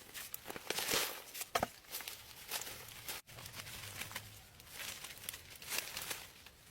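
Irregular rustling and crinkling with many light taps and clicks, as of leaves or packaging being handled. There is a brief break in the sound about halfway through.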